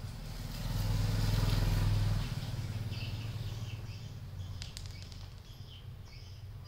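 A motor vehicle engine running nearby, swelling in for about a second and a half and then fading away. Faint bird chirps follow.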